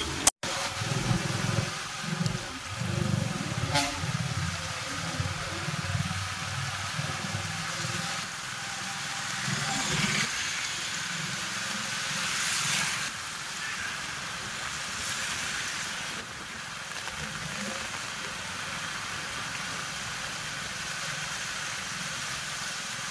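Heavy rain hissing steadily, mixed with the engines and tyres of vehicles moving on a wet road, with a broken low rumble through roughly the first half.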